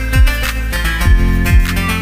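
Background music: a plucked acoustic guitar melody over a steady beat with a deep kick drum.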